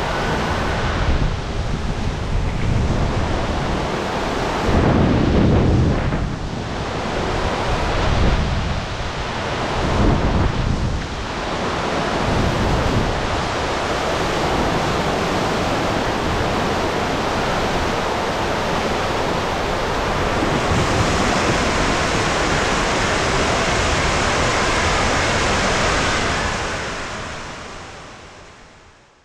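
Water rushing and splashing around an inflatable cloverleaf raft as it slides through an enclosed tube waterslide and a funnel, with heavy, rumbling surges in the first half and an even rush after. The sound fades out near the end.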